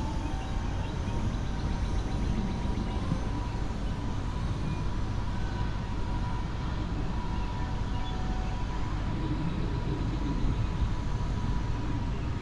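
Distant diesel freight locomotive running, a steady low rumble with a faint steady whine above it.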